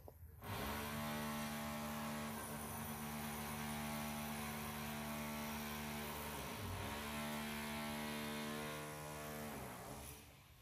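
A steady motor hum, starting about half a second in. Its pitch dips briefly twice, about six and a half and nine and a half seconds in, and it fades out near the end.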